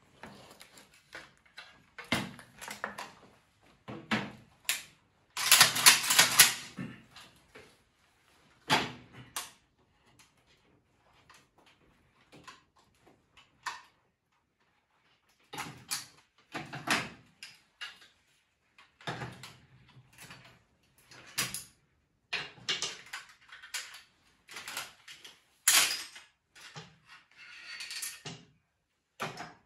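AK-47 being stripped by hand: irregular metallic clicks, clacks and scrapes as parts are unlatched, slid off and set down on a wooden table, with the loudest clatter about six seconds in.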